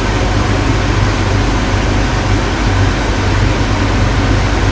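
IBM z9 mainframe's cooling fans running after a cold power-on: a loud, steady rush of air over a low hum.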